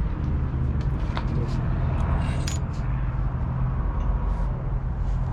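A steady low mechanical hum, with a few light clicks and clinks scattered through it.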